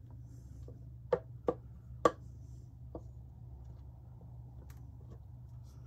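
Four sharp taps on a stainless steel mixing bowl as the last of the pie filling is knocked out into a pie plate, about half a second to a second apart in the first three seconds, over a steady low hum.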